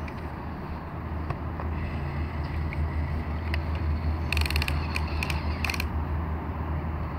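Small electric motors and plastic gearboxes of radio-controlled toy construction models (a Double E 17-channel excavator and a dump truck) whirring steadily, getting a bit louder about two seconds in. About four to six seconds in there is a rapid run of ratcheting clicks from the gears.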